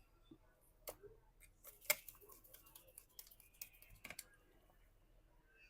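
Faint, scattered light clicks and ticks of small screws and a small screwdriver as the screws go back into a smartphone's inner cover, the sharpest click about two seconds in.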